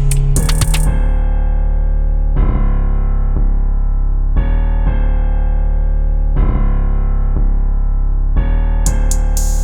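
Electronic music: sustained keyboard chords that change about every two seconds. The drum beat drops out about a second in and comes back near the end.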